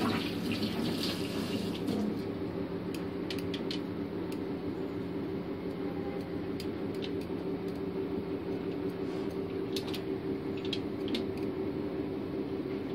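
Pot of grape leaves blanching in water on a gas stove: steady bubbling over a steady low hum, with a few light clicks about three seconds in and again near ten seconds.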